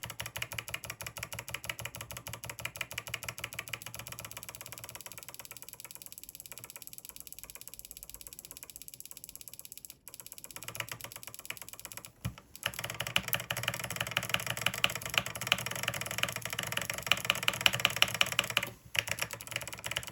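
Fast, steady clicking of mechanical key switches on the 8BitDo Retro Numpad C64 Edition, a key tapped over and over many times a second. The clicking grows quieter in the middle, stops briefly about ten and twelve seconds in, then comes louder again.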